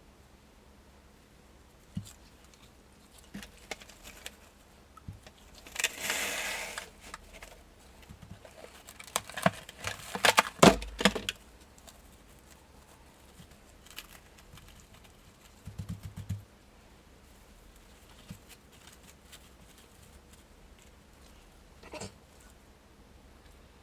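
PPSh-41 submachine gun parts being handled on a workbench: scattered metal clicks and clinks, about a second of rustling noise around six seconds in, and a quick run of knocks around ten seconds in with one loud knock. A short rattle comes near sixteen seconds and a single click near the end.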